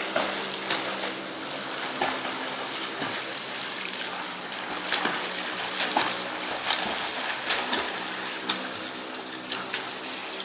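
A swimmer's strokes and kicks splashing through pool water, in irregular splashes about once a second, over a steady hum.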